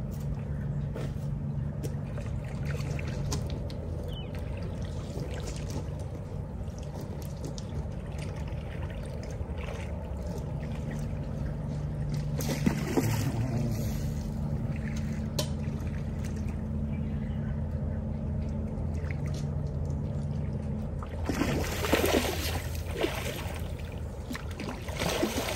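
A hooked salmon splashing and thrashing in the shallows at the bank, loudest from about three-quarters of the way in, with small water trickling and lapping sounds before it. A steady low motor hum runs underneath, stopping and starting.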